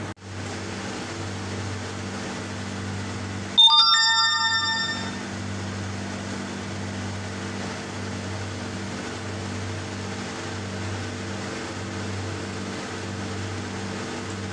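A steady low hum throughout, and about three and a half seconds in a single bright bell-like chime that rings out and fades over about a second and a half.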